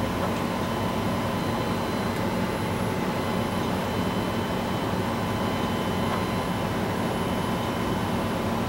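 Steady room noise: an even hum and hiss with a few faint steady tones, and no distinct clicks or handling sounds.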